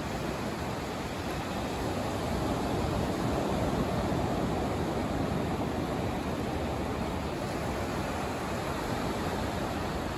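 Ocean surf breaking and washing up a sandy beach: a steady wash of waves that swells a little about three seconds in and then eases.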